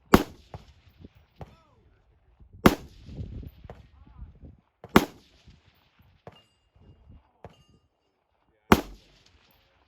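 Four single rifle shots, each a sharp crack with a short echoing tail, fired two to four seconds apart.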